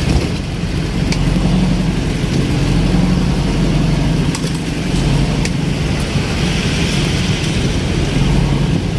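Jeepney's diesel engine running steadily during a ride, heard from inside the open-sided passenger cab, with a few light clicks and rattles.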